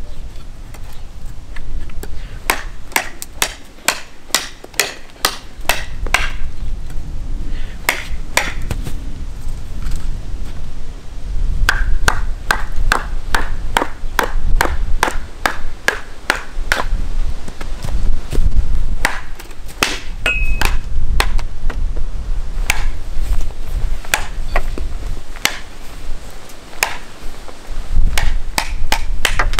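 Large fixed-blade bushcraft knives chopping into wood: a fast run of sharp strikes, about two to three a second. For part of it a wooden baton pounds the knife's spine to split a log.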